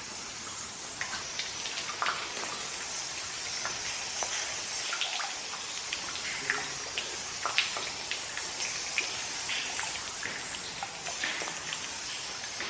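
Water dripping in a cave: many small, irregular drops over a steady hiss of trickling water.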